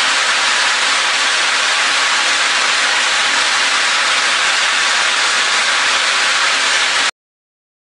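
Granular material spilling from the top of a running Olds Elevator vertical screw conveyor demo unit and showering back into its bucket: a steady, even hiss that cuts off suddenly about seven seconds in.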